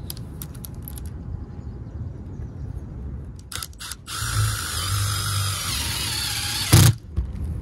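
Cordless power driver whining as it drives a self-tapping bolt through a solar panel roof mount into a rafter, starting about four seconds in and slowing slightly as the bolt bites. It ends in a loud sharp knock as the bolt seats and the tool stops. A few short clicks come before it.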